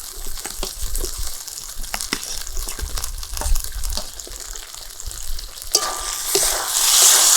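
Spatula scraping and tapping in a kadai as fried potatoes are stirred into hot spiced masala that has released its oil, over a low frying sizzle. Near the end the sizzle grows much louder.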